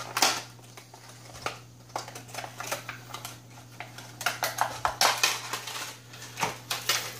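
Clear rigid plastic lure package being handled and pried open by hand: an irregular run of plastic clicks, crackles and snaps, with busier clusters about a second in and again around the middle.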